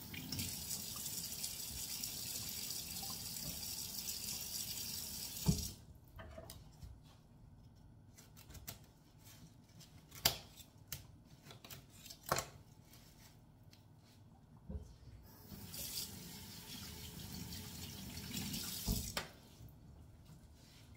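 Kitchen tap running into a stainless steel sink as broccoli is rinsed under it, shut off abruptly after about six seconds. Then scattered sharp clicks and knocks of a knife cutting broccoli into florets, and the water runs again for a few seconds near the end.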